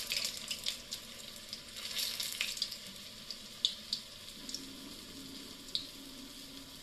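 Onion and wheat-flour vadas sizzling as they deep-fry in hot oil: a steady hiss with a few sharp crackles.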